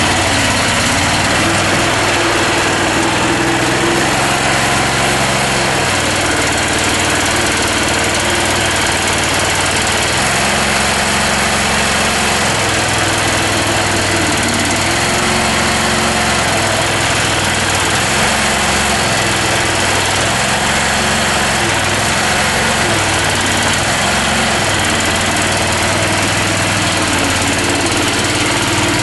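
Small engine of a homemade tractor running steadily while the tractor drives, its speed rising and falling every few seconds.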